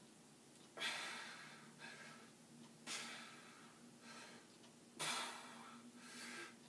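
A man breathing hard from exertion during resistance-band repetitions: a strong, hissy breath out about every two seconds, with a softer breath between.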